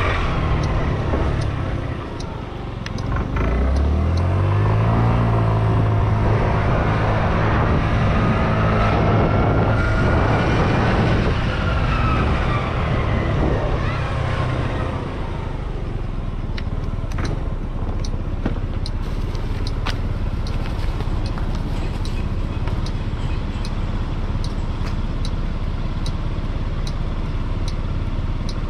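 Delivery motorcycle's small engine pulling away, its note rising and then holding steady for about ten seconds before easing off, over wind and road noise. Scattered light ticks come through in the second half.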